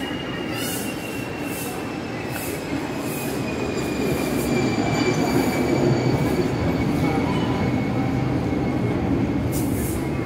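A passing train with its wheels squealing: a long high tone that slowly falls in pitch, over a rumble that grows louder about halfway through.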